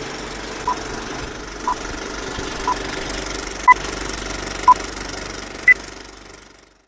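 Film countdown leader sound effect: short beeps once a second over a steady film-projector rattle and hiss, the last beep higher-pitched. The whole thing fades out near the end.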